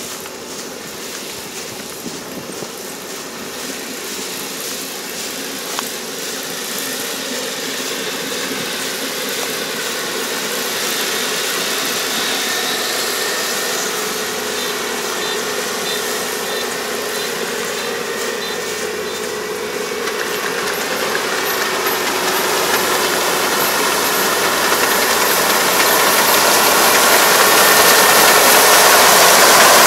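Four-row rice combine harvester running under load as it harvests lodged rice, a steady engine-and-machinery drone that grows steadily louder as it approaches.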